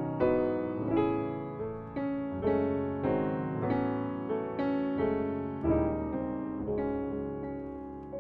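Background piano music: chords struck about twice a second, each left to ring and die away, with a low bass note entering about two-thirds of the way through.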